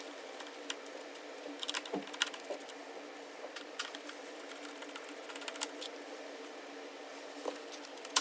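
Scattered small clicks and taps of a screwdriver backing out the two screws that hold a laptop's hard disk, and of the drive being handled as it comes free, over a faint steady hum.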